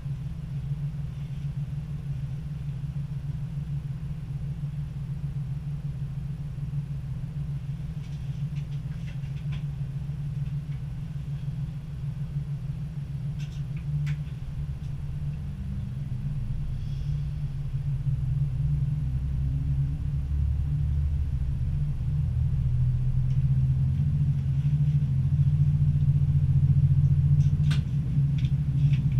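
Diesel engine of a Stadler GTW diesel-electric train running steadily at idle, heard from the driving cab, then revving up from about halfway as the train slowly pulls away, getting louder towards the end. A few faint clicks in between.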